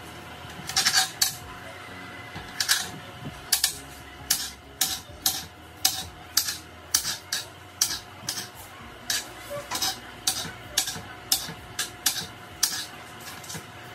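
Kitchen knife chopping onion: a long run of sharp chops, about two a second, some in quick pairs.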